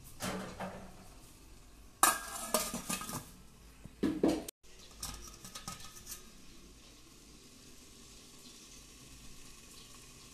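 Stainless-steel momo steamer and its glass lid clattering as the pot is handled and the lid is put on: clusters of metal clanks, the loudest about two seconds in, lighter clinks around five to six seconds, then only a faint steady hiss.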